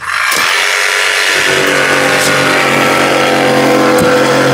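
Electric jigsaw cutting through an extruded polystyrene insulation board (Styrodur 3000 CS). The motor starts up and runs at a steady speed as the blade saws the foam.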